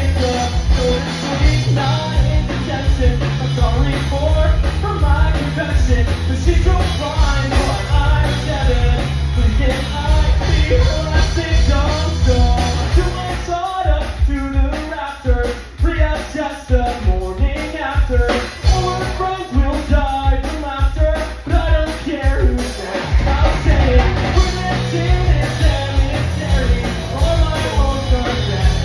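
Rock song with drum kit, bass and singing. The heavy low end of bass and kick drum drops out for about ten seconds in the middle, then comes back in.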